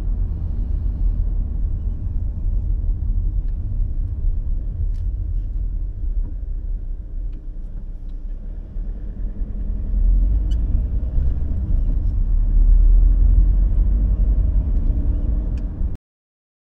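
Low rumble of a car's engine and road noise heard inside the cabin. It is quieter while the car waits at a red light and swells about ten seconds in as the car pulls away on green, then cuts off suddenly near the end.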